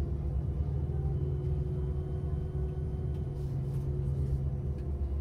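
Steady low drone of a vehicle's engine and road noise while driving.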